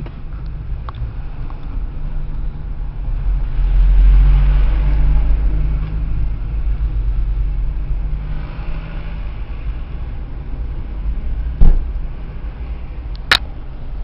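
A sleeping woman snoring, two long breaths about four seconds apart, over the steady low rumble of a moving car's cabin. Two sharp clicks near the end.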